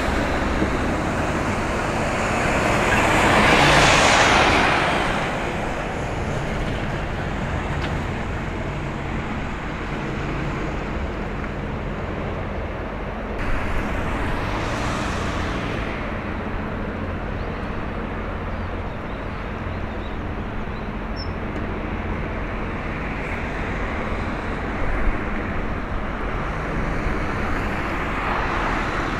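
Road traffic running by over a steady low rumble. One vehicle swells and fades about four seconds in, and another does so about fifteen seconds in.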